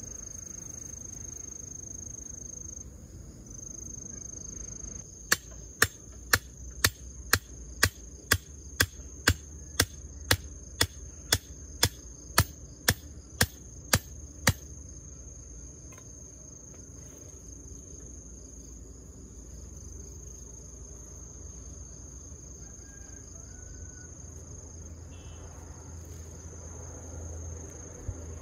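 About nineteen sharp hammer blows, evenly spaced at roughly two a second, driving a wooden stake into the ground, over a steady high chirring of crickets.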